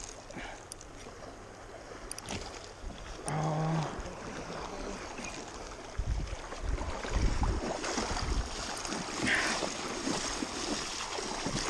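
River water sloshing and splashing in the shallows as a hooked chinook salmon is brought in and a man wades in with a landing net, with wind rumbling on the microphone, heavier from about halfway through.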